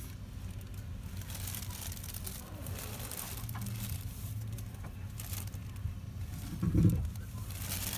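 Low steady hum heard from inside a car stopped at a fuel pump, with brief rustling now and then and one dull thump about seven seconds in.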